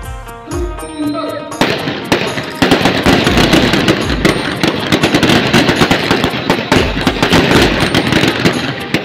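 Feu de joie: a line of riflemen firing blank rounds in quick succession down the rank, a rapid rippling crackle of shots. It starts a little under two seconds in and dies away near the end, with band music playing under the first moments.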